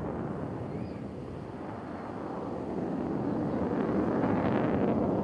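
Jet noise from an RAF Eurofighter Typhoon's twin EJ200 turbofans flying high overhead: a deep, steady rush that grows louder from about three seconds in.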